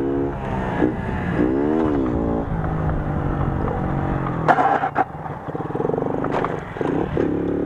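Moped's small two-stroke engine revving up and down during a wheelie. About halfway through comes a short, harsh scraping clatter, the loudest moment, as the rear grab rail drags on the asphalt.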